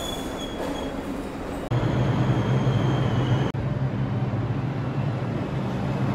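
New York City subway train moving along the platform, with a thin high wheel squeal over its rumble. From about two seconds in, a loud steady low hum from the train runs under the rumble.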